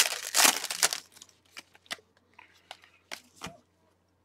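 Foil trading-card pack wrappers crinkling and tearing as gloved hands open and handle packs. The noise is loudest in the first second, then a few brief rustles and clicks.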